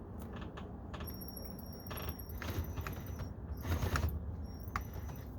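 Drill with a 7mm socket on an extension, run in short bursts to drive a screw into a plastic door panel: a thin motor whine that starts and stops several times, amid clicks and rattles of handling.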